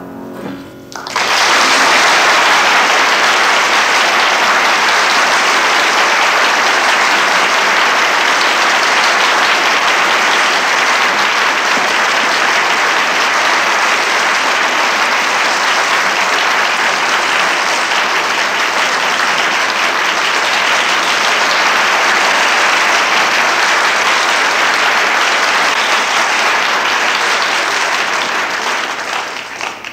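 A harpsichord's last notes die away, and about a second in an audience breaks into steady, loud applause that fades out near the end.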